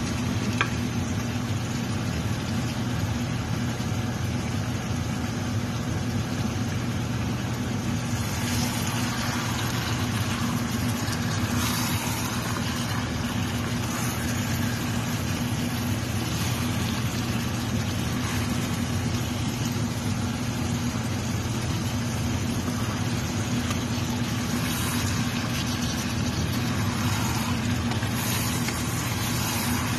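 A steady low machine hum with an even hiss over it. A few brief scraping sounds come from a wooden spoon stirring chicken in an enamelled pot, a third of the way in and again near the end.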